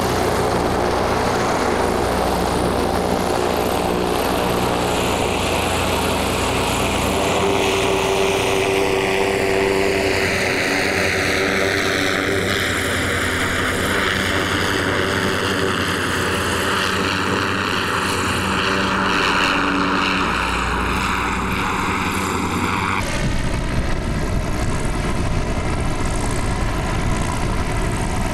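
Goodyear blimp Wingfoot One's (a Zeppelin NT) propeller engines running steadily as the airship lifts off and climbs away, with a slow downward sweep in the pitch of the noise. Near the end the sound changes abruptly to the engines heard from directly beneath the airship.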